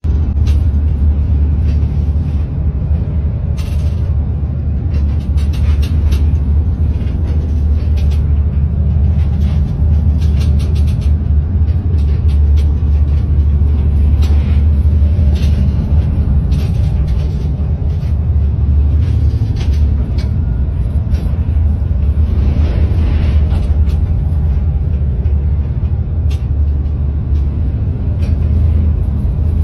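Fishing vessel's engine running with a steady low drone, heard from inside the wheelhouse, with scattered short rattles and knocks as the boat works through heavy seas.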